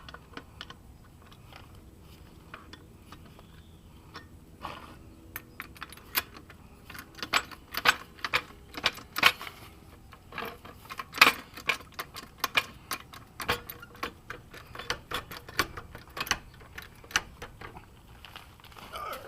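Hydraulic car jack being pumped by its handle, giving irregular metallic clicks and clinks that start a few seconds in and come thick and fast through the middle as the jack is raised.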